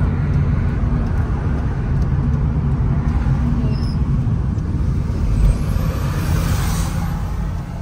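Car cabin noise while driving on an asphalt road: a steady low hum of engine and tyres, with a brief rise in hiss about six to seven seconds in.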